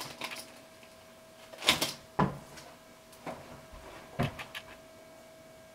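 A handful of scattered clicks and soft knocks, the loudest about a second and a half in, over a faint steady hum.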